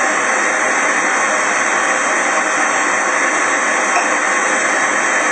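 Onions frying in oil in a pan: a loud, steady sizzle.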